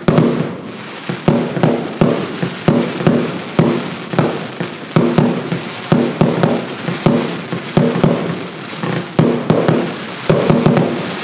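Evolution Fireworks Evo Bomber consumer fireworks cake firing a rapid run of shots that burst overhead, a sharp bang about every half second.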